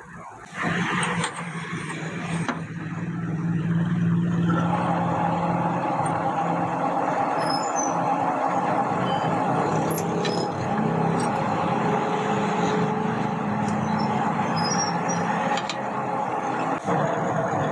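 Metal lathe starting up about half a second in and running steadily with a long axle shaft spinning in its chuck: a steady low motor and gear hum, joined about four seconds in by a steady higher tone.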